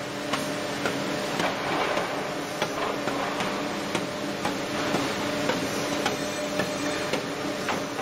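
SystemTM Opti-Joint V-8 finger-jointing machine running: a steady machine hum with irregular sharp clacks and knocks from its mechanisms as boards feed through.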